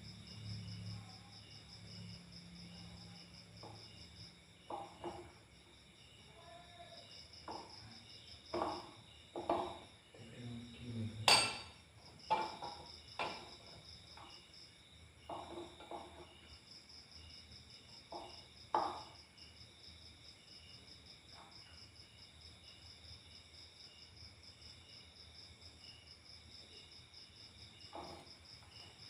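Insects chirping steadily in a high, pulsing drone, with a low hum in the first few seconds. About a dozen scattered short knocks and clinks break in, the loudest about eleven seconds in.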